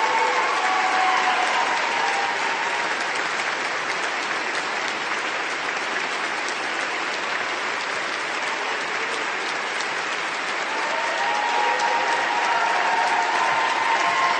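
A large audience applauding, dense continuous clapping that grows a little louder over the last few seconds.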